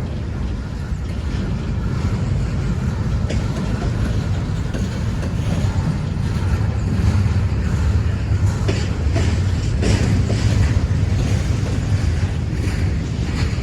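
Freight train rolling past at close range: a steady low rumble, with scattered clicks of wheels going over rail joints.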